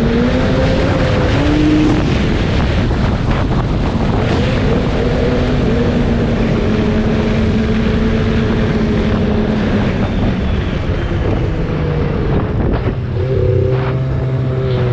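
Snowmobile engine running steadily at trail speed, with wind rushing over the microphone. About twelve seconds in, the engine note drops to a lower, steady pitch.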